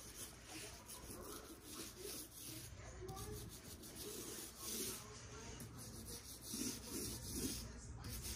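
A mini paint roller rolling back and forth over wet paint on a flat cabinet door: a soft rubbing that swells and fades with each uneven stroke.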